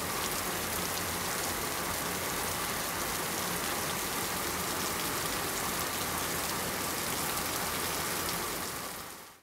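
Steady rain falling, fading out near the end.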